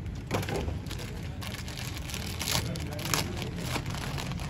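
Plastic wrapping of a new panel air filter crinkling and crackling in short bursts as it is handled, over a steady low hum.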